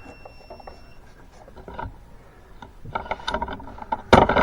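Scattered mechanical clicks and knocks, a quick run of clicks about three seconds in, then a loud sharp clatter near the end.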